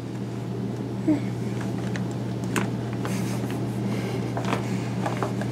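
A steady low hum runs throughout, with a few small clicks and taps as a baby handles and mouths a plastic lotion tube.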